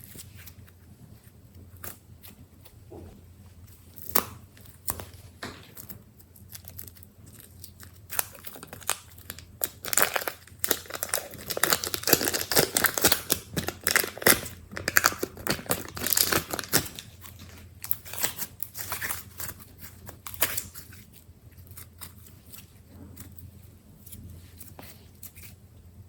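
Slime being squished, stretched and folded by hand: sticky crackling and small pops. These are scattered at first, thick and loud through the middle, then thin back out to occasional clicks.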